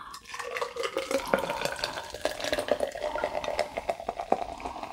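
Nitrogen-infused cola poured hard from a can into a glass: liquid splashing with many small crackles from the foaming head, and the tone of the pour rising steadily as the glass fills.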